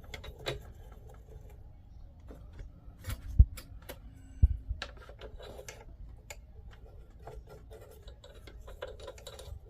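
Small clicks, taps and rubbing from hands and a tool working down inside an opened Singer heavy-duty sewing machine, clearing out thread, with two louder knocks about three and a half and four and a half seconds in.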